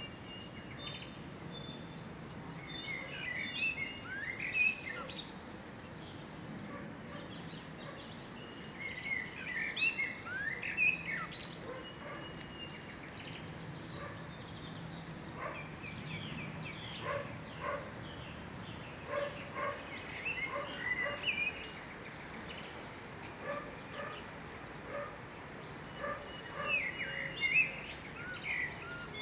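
Birds singing outdoors: bursts of quick chirps and sliding whistles come in phrases every few seconds, with short repeated lower calls through the middle, over a steady faint outdoor hiss.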